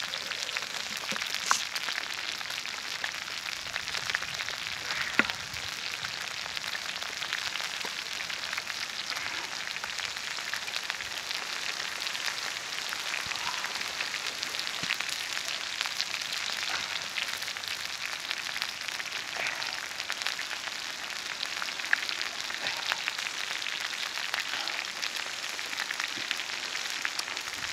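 A steady crackling hiss with a few short, sharp clicks.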